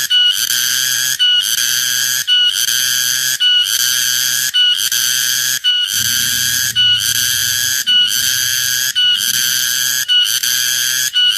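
Cicada singing very loudly: a shrill buzzing call broken into phrases about a second long, each cut by a brief gap, repeating steadily.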